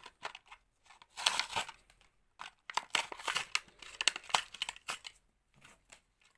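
A Hot Wheels blister pack being opened: plastic blister crinkling and cardboard backing tearing in irregular bursts.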